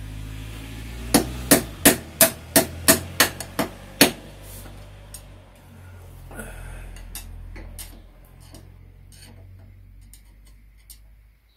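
Hammer blows on a screwdriver used as a drift, knocking the old, notched steering-head bearing race out of a BMW F800GS frame: a quick run of about nine sharp metallic strikes, about three a second, the last the hardest. A few fainter taps follow.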